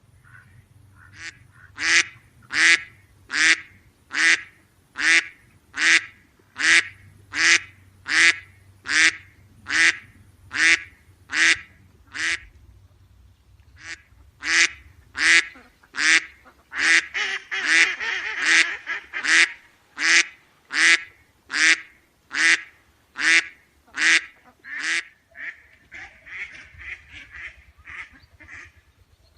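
A duck quacking over and over in a steady rhythm, about one and a half loud quacks a second. There is a pause of about two seconds partway through, the calls crowd together briefly a few seconds later, and they turn fainter near the end.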